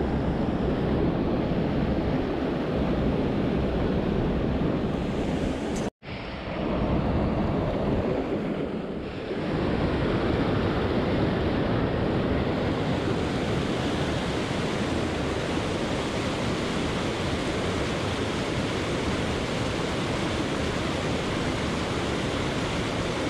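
Rushing water of a trout river: a steady, loud noise with no rhythm. It cuts out completely for an instant about six seconds in, and dips briefly about three seconds later.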